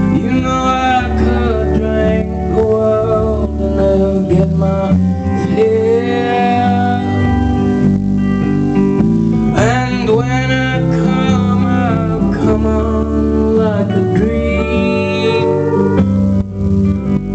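Live band music: a man singing with guitar over sustained low notes, his sung phrases coming in at the start, around ten seconds in, and again near the end.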